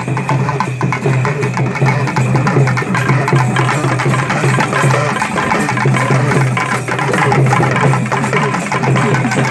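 Loud, fast traditional festival drumming: a dense, continuous patter of drum strokes over a steady low hum.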